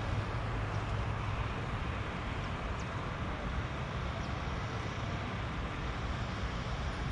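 Steady rumble of road traffic, with a few faint, short high chirps in the first half.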